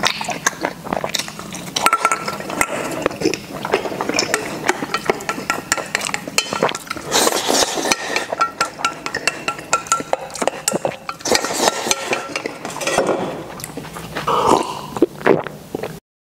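Wooden chopsticks clicking and scraping against a stainless steel bowl, with eating mouth sounds as food is shovelled in from the rim. It cuts off suddenly near the end.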